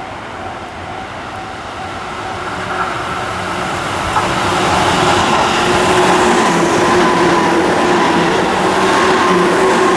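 Tobu 9000 series electric train approaching and running past, its noise building over about five seconds and then holding loud, with a steady hum and whine running through it.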